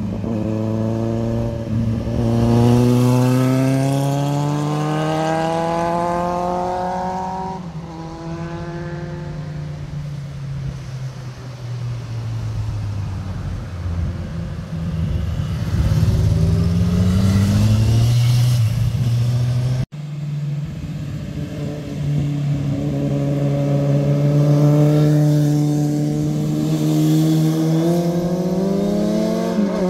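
Motorcycles passing through a bend one after another. Their engines rise in pitch as they accelerate out of the curve and drop back at each gear change.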